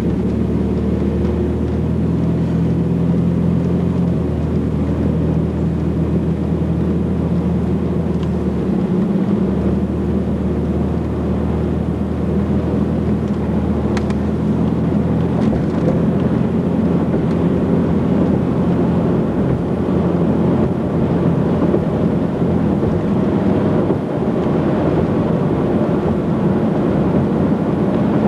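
Car cabin noise while driving at highway speed: a steady engine drone with tyre and wind rumble. The engine's hum steps in pitch a couple of times in the first ten seconds.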